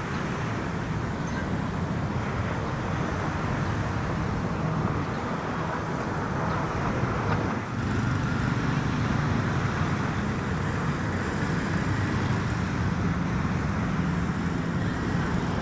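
Steady beach ambience: waves washing onto the sand, with a low hum of road traffic underneath.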